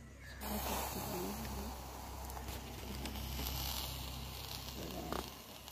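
Hot embers in a clay mud stove hissing as liquid is poured onto them from a small steel cup. The hiss starts suddenly about half a second in, holds steady for around five seconds, then dies away.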